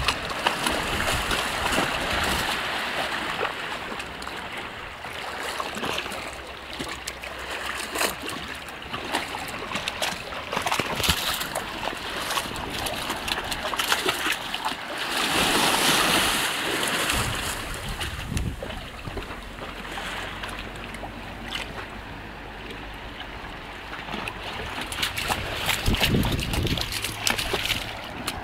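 Greyhound wading through shallow seawater, its legs splashing irregularly step after step over a steady wash of water. The splashing is loudest about halfway through.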